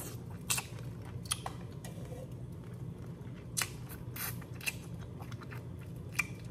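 Boiled crawfish being eaten close to the microphone: shells cracking and peeling by hand, with wet sucking and lip-smacking as the meat and juices are drawn from the shell and fingers. It comes as scattered short, sharp clicks over a low steady hum.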